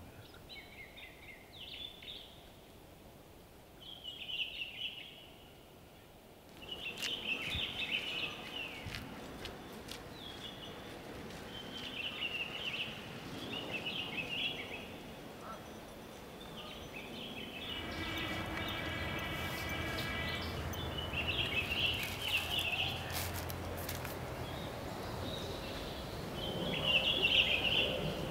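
Wild birds calling: short clusters of high chirps and calls every few seconds over a faint background hiss. Past the middle, a steady low hum comes in, and a pitched call with several overtones is held for about three seconds.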